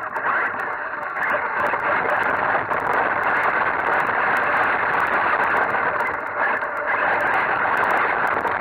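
RC off-road buggy driving fast, heard from a camera mounted on the car: a steady, loud motor-and-tyre noise as it runs over paving and then onto loose dirt, with scattered faint ticks.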